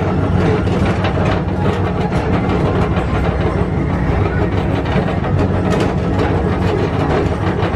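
Tomorrowland Transit Authority PeopleMover car running steadily along its elevated track, driven by linear induction motors: a constant low hum over an even rumble, with faint scattered clicks.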